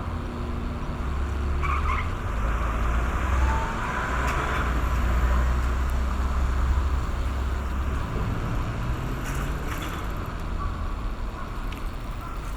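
Rumble of passing road traffic, loudest for the first eight seconds or so, then easing. Under it a late-season large brown cicada (aburazemi) gives a buzzing, sizzling song that swells about four seconds in and then fades as the song nears its end.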